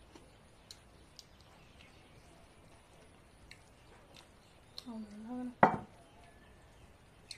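Faint clicks of hand-eating from rice plates, then a short hummed voice sound about five seconds in. Right after it comes one loud knock as the small steel serving bowl is set down on the table.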